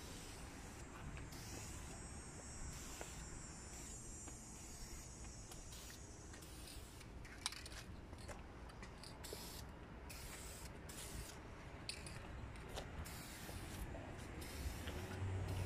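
Aerosol spray can of clear coat hissing as it is sprayed: one longer steady spray in the first few seconds, then repeated short bursts. There is a single sharp click about halfway through.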